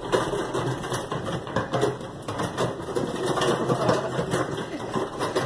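A wheeled cart rolling fast over a rough concrete floor, its wheels and frame rattling and clattering without a break: a bumpy ride.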